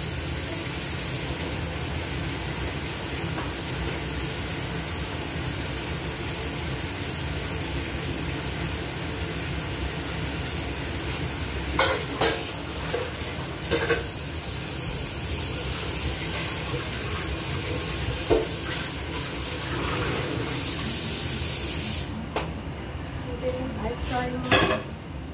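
Steady hissing noise from the stove area, with a few sharp clinks of pots and dishes about halfway through. The hiss drops away a few seconds before the end, followed by a clatter of a pan.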